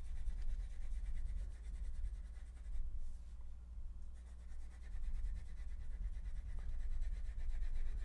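Blue wax crayon rubbing back and forth on a paper pattern as stripes are coloured in, over a steady low hum.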